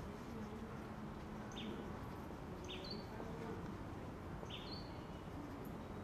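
Faint garden ambience: a low, wavering buzzing hum, with three short high bird chirps spread over a few seconds.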